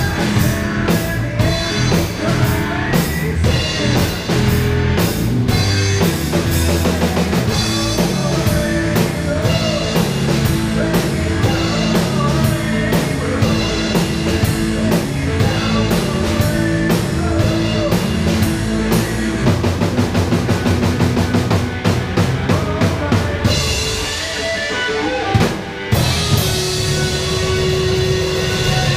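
Live instrumental rock from a band of electric bass, electric guitar and drum kit, with the drums driving a steady beat. About 24 seconds in the drums drop out briefly, coming back in with a hit about two seconds later.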